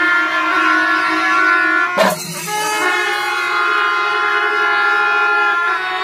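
Kombu, the curved brass horns of a Kerala temple ensemble, sounding long held notes together with kuzhal reed pipes, a massed chord. A single sharp crack about two seconds in briefly breaks it before the held notes carry on.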